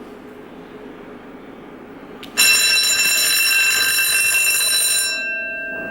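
An alarm bell starts ringing loudly a little over two seconds in. It holds for about two and a half seconds, then stops and its tones ring away.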